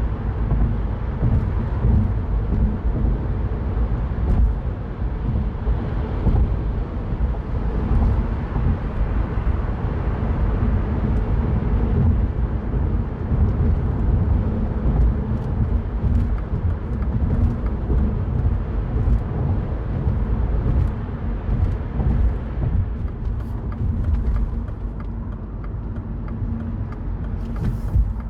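Mini Cooper Cabrio on the move, its engine and tyre-on-road rumble heard steadily from the driver's seat. The sound eases somewhat about 23 seconds in.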